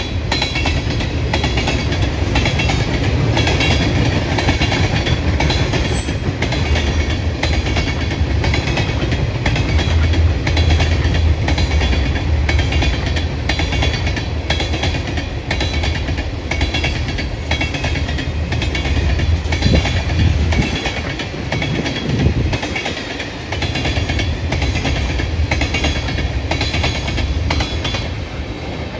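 A train's cars rolling past, their wheels clicking over the rail joints in a steady rhythm over a low rumble.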